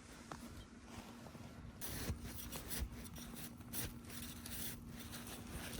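Snow being scraped and dug, a run of irregular rasping crunches that start about two seconds in. A faint steady hum runs underneath.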